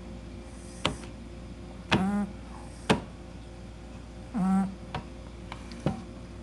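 Kishu puppy snoring: two short snores a couple of seconds apart, each with a pitch that slides, in time with its sleeping breaths. Sharp clicks fall between them.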